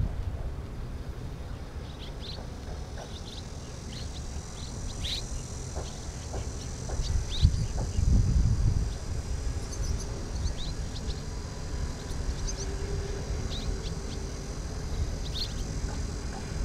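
Swallows giving short, high chirps again and again as they fly low over the grass, with wind rumbling on the microphone and a stronger gust about eight seconds in.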